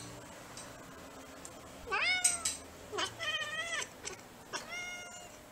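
Bengal cat meowing three times in short, high-pitched calls, the first about two seconds in and the others about a second apart.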